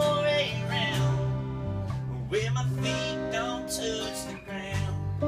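Acoustic band music: acoustic guitars strummed and picked, with steady low notes underneath.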